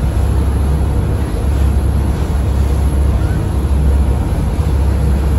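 Steady low rumble of a passenger ferry under way at speed, its engines and wash running on without a break, with wind on the microphone on the open deck.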